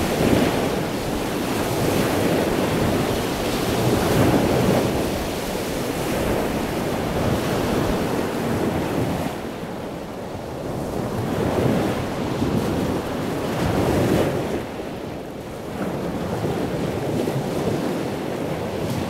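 Ocean waves breaking and washing on shore, a steady surf roar that swells and ebbs every few seconds.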